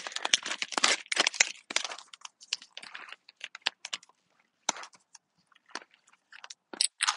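Kraft-paper stand-up pouch being torn open at the top and crinkled in the hands: a dense run of crackling for about the first three and a half seconds, then scattered crinkles.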